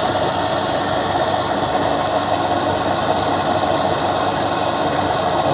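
A test-bench drive motor spinning a permanent-magnet generator at a steady speed of about 1,466 RPM: an even machine hum with a steady whine over it.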